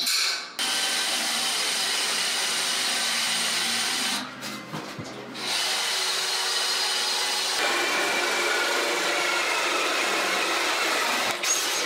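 Cordless drill boring into the wall of a steel rectangular tube, the motor running steadily under load. The drill stops briefly about four seconds in, then drills again until near the end.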